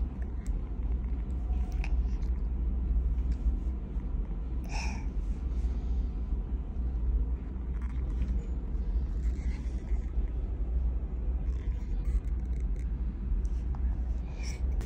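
A steady low rumble, with a few faint brief small sounds over it.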